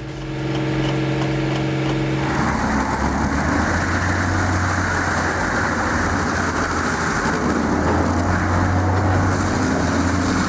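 Heavy machine engine running steadily. About two seconds in, the sound becomes louder and rougher and stays that way.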